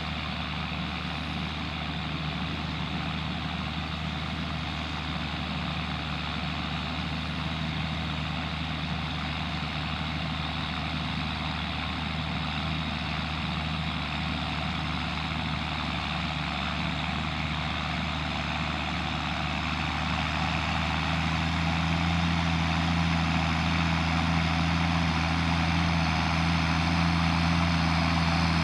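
John Deere tractor's diesel engine running steadily, getting a little louder and slightly higher in pitch about three-quarters of the way through.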